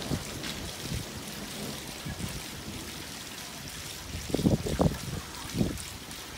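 Steady trickle of running water, with a few low bumps about four to five seconds in.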